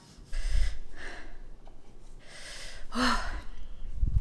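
A woman breathing hard through her mouth in several sharp, airy breaths and gasps, with a short voiced sigh about three seconds in: the burn of extremely spicy noodles.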